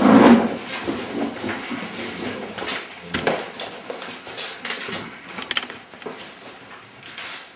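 Indistinct voices murmuring in a small meeting room, with a short knock a little after three seconds in.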